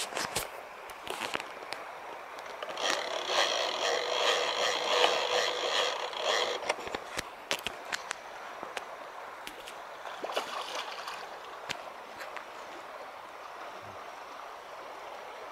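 Shallow river water running over a gravel bed, with scattered small clicks and knocks. About three seconds in, a louder whirring buzz starts and lasts some four seconds.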